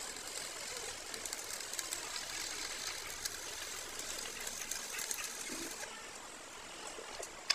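Stick-welding arc crackling and sputtering as an electrode lays weld onto an excavator track roller shaft, building up the worn shaft. The crackle thins out about six seconds in, and a single sharp click comes near the end.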